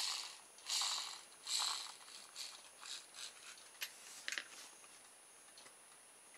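Hands handling a plastic motor-kit base with its magnets and metal axle: a run of short rattling, scraping sounds that fade over a few seconds, then two sharp clicks about four seconds in as the base is set down on the desk.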